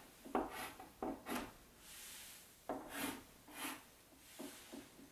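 Chalk being drawn across a blackboard: about ten short, quiet scratchy strokes with small gaps between them.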